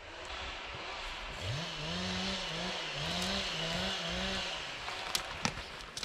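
Chainsaw engine revving up about a second and a half in, then running at high revs for about three seconds, its pitch dipping and recovering over and over as it cuts into wood, before it dies away. Two sharp cracks near the end.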